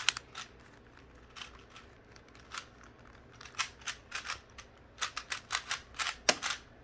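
Plastic 3x3 speed cube turned one-handed: irregular clicking and clacking of layer turns, sparse at first, then coming faster from about halfway through.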